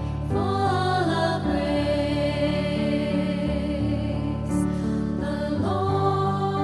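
Slow background music of held chords with choir-like singing voices, the chords changing every second or so.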